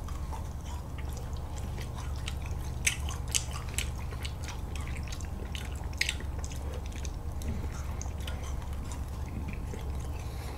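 Ice cream bars being eaten off the stick: scattered small bites, mouth clicks and wet eating noises, over a steady low hum.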